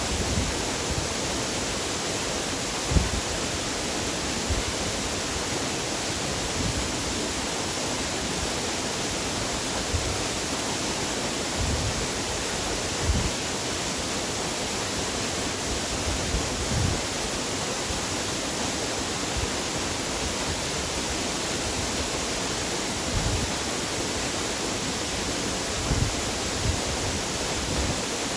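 A waterfall's steady, unbroken rush of falling water, with a few brief low thumps scattered through it.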